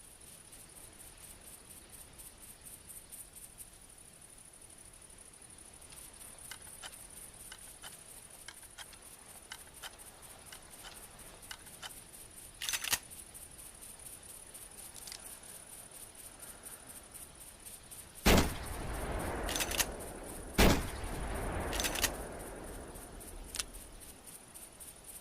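.30-30 lever-action rifle: light metallic clicks of handling, then two loud shots about two and a half seconds apart, each with a lingering echo, with the lever worked between and after the shots.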